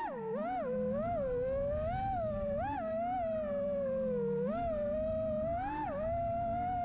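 FPV quadcopter's brushless motors whining, the pitch swooping up and falling back again and again with throttle punches, then holding nearly steady near the end, over a low rushing noise.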